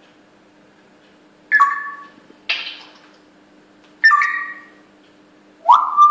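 African grey parrots calling: two short two-toned whistles, a brief harsh squawk between them, and near the end a whistle that rises and then holds, over a faint steady hum.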